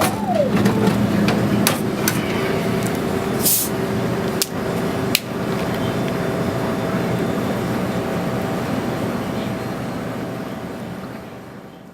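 Machine shop noise: a steady machine hum with occasional sharp metallic knocks, fading out near the end.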